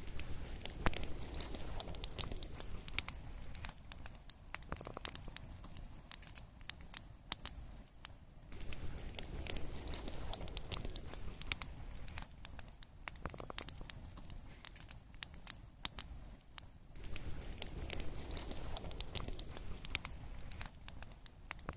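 Irregular crackling with many sharp clicks over a low rumble.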